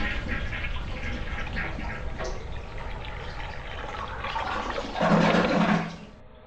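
Toilet flushing: a steady rush of water that swells loudest about five seconds in, then fades out.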